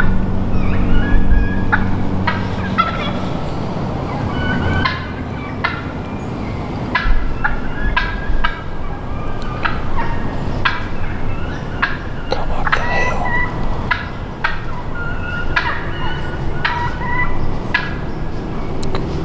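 Wild turkeys calling, a scattered run of short sharp clucks and notes. A low steady drone fades out in the first three seconds.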